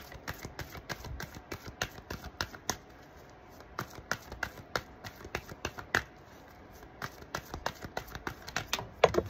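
A deck of oracle cards being shuffled by hand: a run of light card clicks and snaps, several a second, with a louder flurry near the end.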